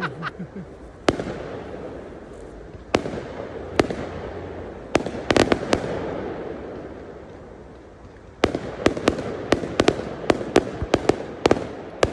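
Aerial fireworks exploding. At first single bangs come every second or two, each with a lingering echo, with a quick cluster about five seconds in. From about eight seconds in there is a rapid string of cracks, several a second.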